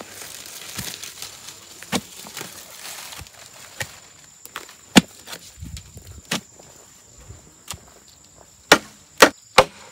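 Chopping: a blade striking wood, a series of separate, unevenly spaced sharp strikes, with three loud ones in quick succession near the end.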